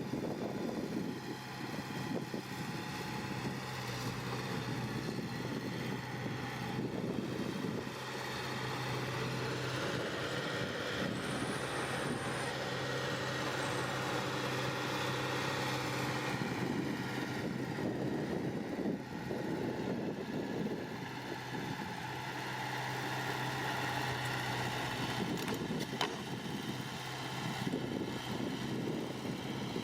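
Diesel engine of heavy earthmoving machinery running steadily, a constant low drone that swells and eases a little, with a single sharp click about 26 seconds in.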